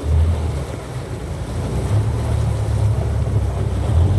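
Outboard motor of a small speedboat running at speed, a steady low drone, mixed with wind and water rushing past the boat.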